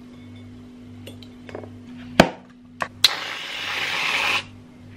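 A sharp clink of crockery a little over two seconds in and a lighter click, then about a second and a half of hissing from an aerosol can of whipped cream being sprayed.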